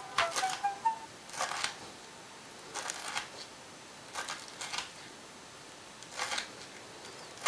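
Kitchen knife chopping vegetables on a plastic cutting board: five short runs of quick taps with pauses between them.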